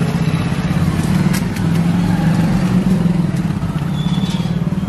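Steady low hum of a motor vehicle's engine running close by on the street, with a few faint clicks over it.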